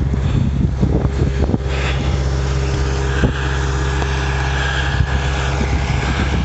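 Truck engine running steadily, with a few short knocks in the first second and a half and a faint whine later on.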